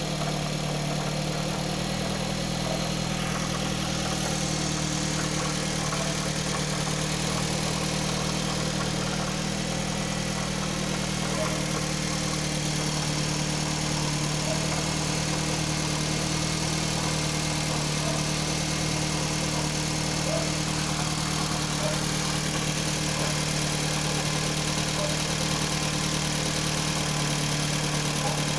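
Mitsubishi 4B11T 2.0-litre turbocharged four-cylinder engine idling steadily, with a knock that the owner cannot place.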